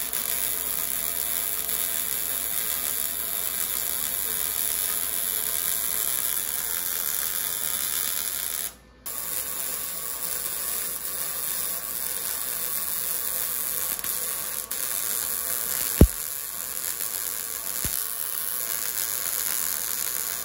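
Electric arc welder crackling and buzzing steadily as a V-band adapter is welded onto a 2.5-inch exhaust pipe. The arc stops for a moment about nine seconds in and strikes again, and there is a single sharp click late on.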